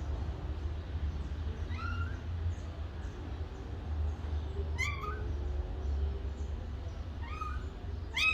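Kitten mewing: four short, high, rising cries a few seconds apart, the last two close together, over a steady low hum.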